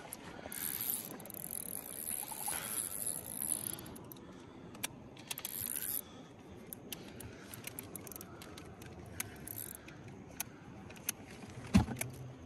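Carp fishing reel at work while a hooked carp is played: a high, hissy whir twice, the first lasting about three seconds, with many small scattered clicks and knocks throughout.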